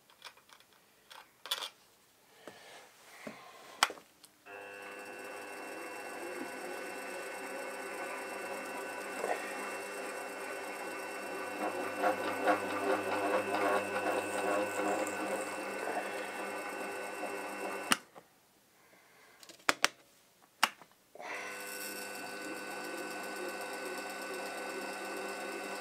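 Milling machine spindle motor running as a machine tap power-taps threads into a drilled hole in a mild steel plate, with rougher cutting noise in the middle. A few light clicks come first, the motor starts about four seconds in, cuts off suddenly about 18 seconds in, and starts again about three seconds later.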